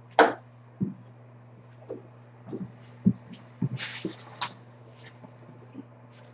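Thumps and knocks of a person moving about and handling things close to the microphone, with a brief rustle and scrape about four seconds in as a fleece blanket is pulled across a tile floor. A steady low hum runs underneath.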